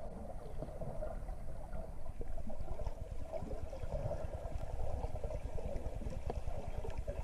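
Underwater ambience picked up by a submerged GoPro: a steady low rumble of moving water, with faint scattered clicks.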